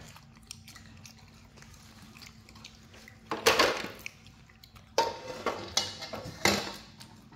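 A spoon and dishes clinking and scraping: quiet for the first few seconds, a louder scraping rustle about three and a half seconds in, then a run of light knocks and clinks near the end.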